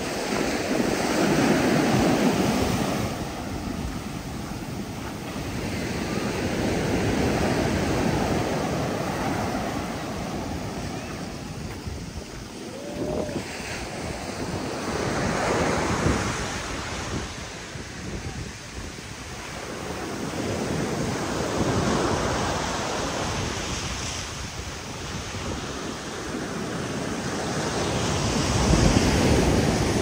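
High surf breaking on a beach: waves crash and wash up as swells of rushing noise every six to eight seconds, with wind on the microphone.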